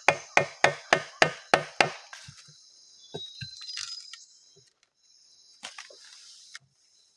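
Rapid chopping of wood with a blade, about three strokes a second, stopping about two seconds in. A few scattered lighter knocks follow, with insects chirring in the background.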